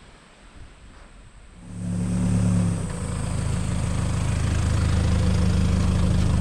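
A vehicle engine starts to be heard about two seconds in and runs steadily at a low, even hum, easing slightly in pitch and level a second later.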